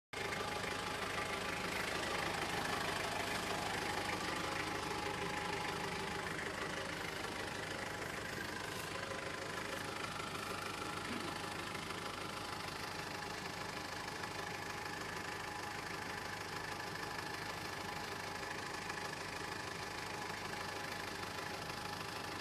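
Mitsubishi Triton L200 pickup engine running steadily, a little louder for the first few seconds and then even.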